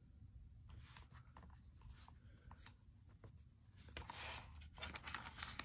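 Faint paper rustling and light taps as fingers press and smooth washi tape onto a paper planner page, with a louder brushing rub about four seconds in.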